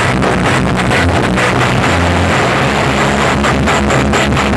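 Loud music with heavy, continuous bass played through huge stacked sound-system rigs in a sound-system battle.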